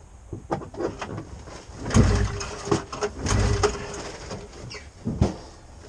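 Snowmobile engine being pull-started by its recoil rope, several pulls with the two strongest about two and three and a half seconds in, turning the engine over without it starting. The engine is flooded, which the owner blames for it not starting.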